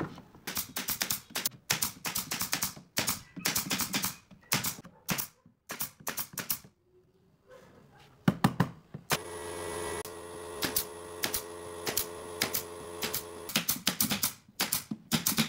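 Pneumatic brad nailer firing nails into pine pallet boards: sharp shots in quick bursts, several a second. A steady hum runs under the shots for about four seconds in the second half.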